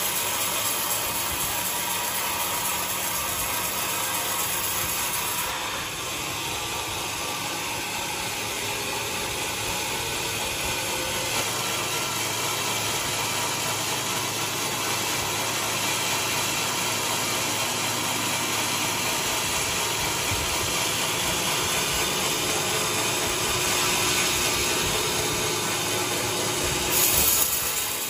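Large sawmill running steadily, sawing a coconut log, with a dense mechanical noise and a brief louder surge near the end.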